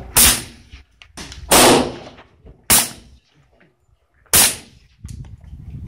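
Four suppressed pistol shots about one to two seconds apart, each a sharp crack with a short ringing tail.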